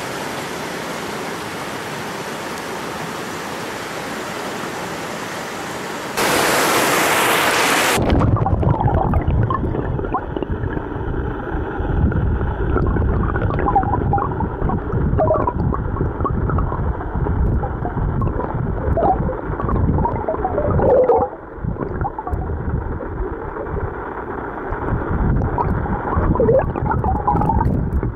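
Clear, shallow river running over stones, a steady rush of flowing water heard at the surface. It grows louder for about two seconds, then from about eight seconds in turns to a muffled underwater rush with bubbling and little chirping bubble sounds.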